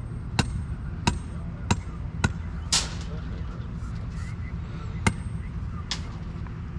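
A series of sharp knocks, several about half a second apart and then two more spaced further out, over a steady low hum.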